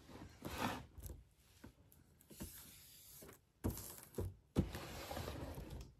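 Clear plastic film wrapped around a toy box crinkling and rustling as a hand handles and presses on it, in several irregular bursts with a longer stretch near the end.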